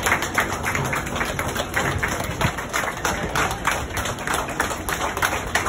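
A crowd of children and adults clapping, a dense, continuous patter of many handclaps.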